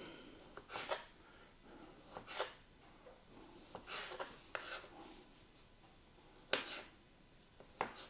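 A kitchen knife cutting boiled potato on a cutting board, about six irregular slicing strokes with quiet scraping in between.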